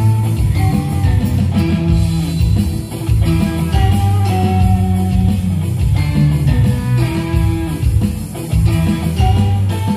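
Live band music amplified through a large PA sound system: an instrumental passage with a strong bass line, electric guitar, a sustained saxophone melody and kendang drums, with no singing.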